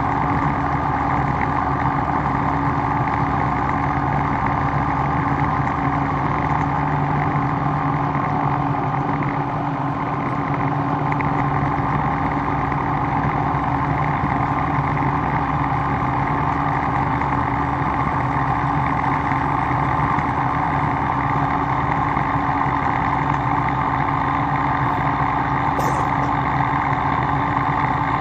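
A machine running steadily with a constant hum, no strikes or changes in pitch.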